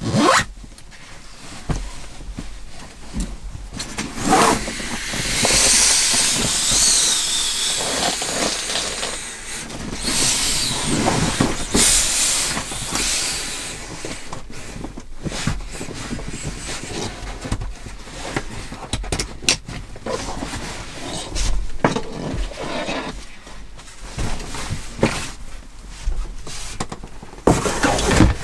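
Fabric and bags rustling as bedding is stuffed into a sack and packed away, with scattered knocks on a wooden floor.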